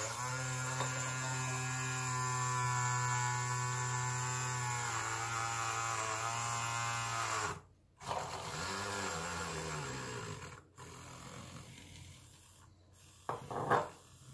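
Handheld milk frother whirring in a small glass jar, whisking melted oils and gradually added water into a cream emulsion. It runs steadily, its pitch sags a little about five seconds in, and it stops briefly around seven and a half seconds. It restarts with a wavering pitch and runs weaker, with a short louder sound near the end.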